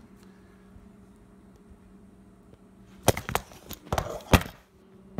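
Quiet room tone with a steady low hum for about three seconds, then a quick cluster of sharp knocks and clicks, the loudest near the end: handling noise from a hand close over the camera.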